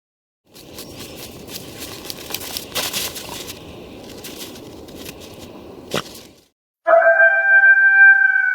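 Irregular crackling and crunching with a sharp crack near the end, then a loud, long wolf howl that starts about seven seconds in and falls slightly in pitch.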